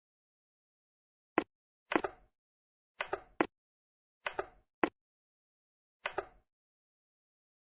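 Short, sharp clicks and clacks, some single and some in quick pairs, coming about once a second with silence between them.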